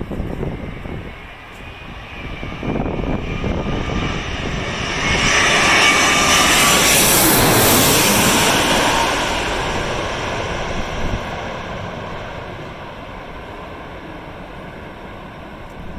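Airliner on final approach passing low overhead to land. Its engine noise swells to a loud peak with a high whine in the middle, then fades away, while strong wind buffets the microphone.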